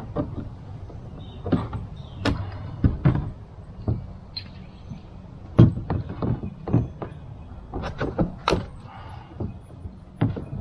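Irregular knocks, clicks and clatter of gear being handled and fitted on a kayak, over a steady low rumble. The sharpest knocks come about halfway through and again a few seconds later.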